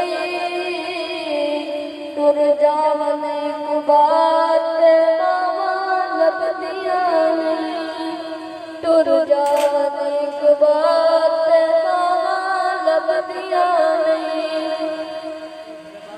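A voice singing poetry to a slow melody in long, slightly wavering held notes, in a chant-like recitation style. There is a single sharp click about nine and a half seconds in, and the singing fades out near the end.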